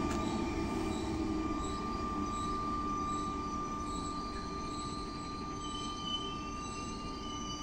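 SNCF Z 5600 double-deck electric multiple unit pulling into a station and slowing towards a stop, running with a low rumble and a steady high squeal that fades slowly as it draws away.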